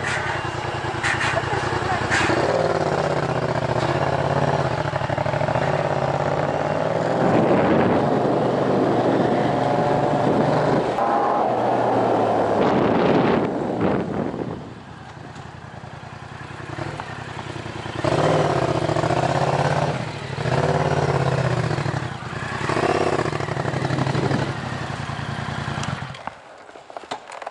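Yamaha MT-07 parallel-twin engine running through a Tiger full exhaust system with decat headers, at low speed with the throttle blipped: the revs climb and fall for several seconds, drop back about halfway through, rise in short bursts a few more times, and fall away sharply near the end.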